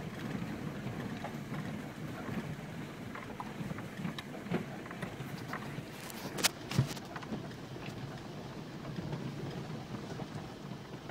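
Ford Endeavour SUV crawling over a rough, stony forest track, heard from inside the cabin: a steady low rumble of engine and tyres with scattered small knocks and rattles, and two sharp knocks close together a little past halfway.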